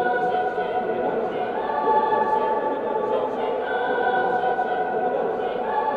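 Mixed choir singing held notes, moving to a new chord about every two seconds.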